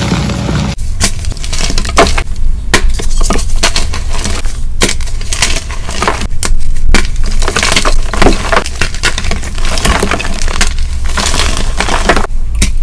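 Blocks of dyed gym chalk crushed and squeezed by hand, making dense, crisp, irregular crunching and crumbling with many sharp cracks. About a second in it cuts from a softer crush of powdery chalk.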